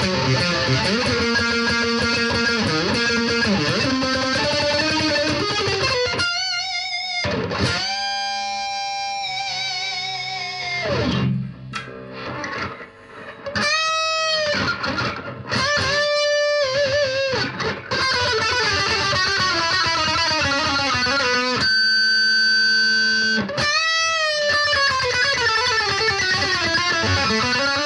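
BC Rich Virgin VG1 electric guitar played through a Roland Cube Lite practice amp's distortion channel: a lead line of fast single-note runs and held notes that are bent up and back down with vibrato, with a short pause near the middle.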